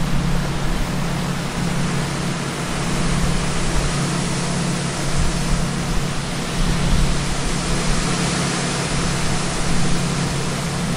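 Steady rushing noise with a constant low hum underneath, unchanging throughout.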